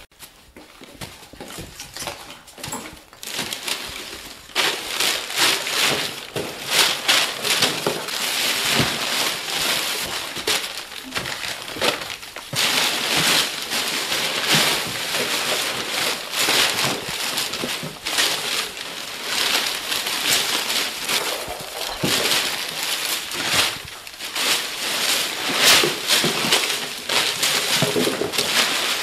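Newspaper, tissue and wrapping paper rustling and crumpling nonstop as it is pulled out of a box and tossed about, a dense crackle of paper that builds up about four seconds in.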